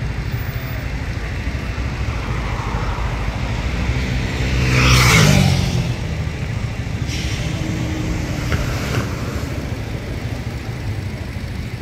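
Street traffic rumbling steadily, with a motor vehicle passing close about five seconds in: it is loudest as it goes by, and its engine note falls in pitch as it moves away.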